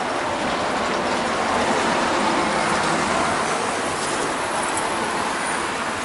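Road traffic passing a roadside bus stop: a steady rush of tyres and engines that swells slightly a couple of seconds in.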